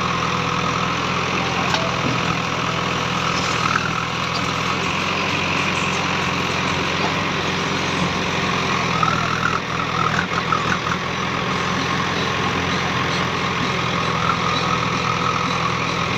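JCB 3DX backhoe loader's diesel engine running steadily at close range, with its hydraulics working the backhoe arm; a rising, uneven whine comes in about nine to eleven seconds in as the bucket digs into soil and stones.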